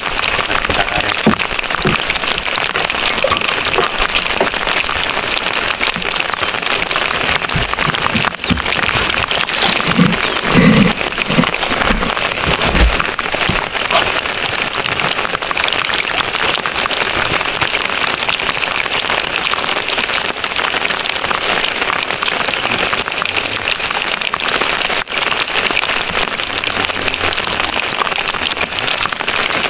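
Steady rain falling, a dense even patter, with a few low knocks and bumps about ten to thirteen seconds in.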